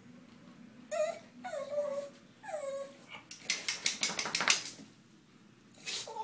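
Staffordshire bull terrier whining: three short whines that each fall in pitch, then a quick run of sniffing about halfway through, and one more short whine near the end. The dog is begging for its ball, which is out of reach.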